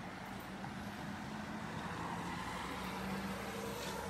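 A motor vehicle's engine running in the street: a steady low hum over road noise.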